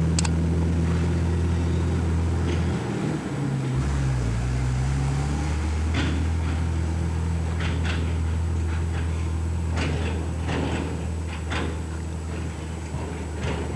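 A steady low motor hum that shifts in pitch about four seconds in, with a few scattered clicks and knocks.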